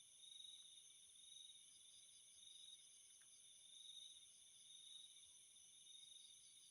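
Faint night insects, crickets, trilling steadily in several high pitches, one of them swelling and fading about once a second.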